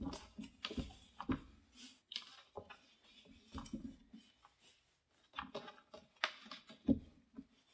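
Handling noise from a cotton drawstring bag holding a heat press: irregular rustling and scraping of the cloth with a few dull thumps as the bagged press is shifted on the table, the loudest near the start and about seven seconds in.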